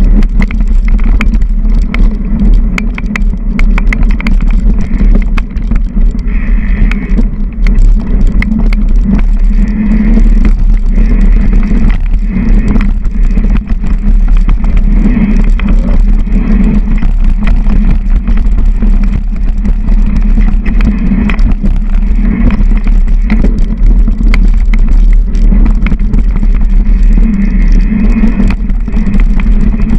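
Mountain bike descending a rough dirt forest trail, heard from a camera on its handlebars: a loud steady rumble of tyres and rushing air, with dense rattling clicks from the bike jolting over bumps.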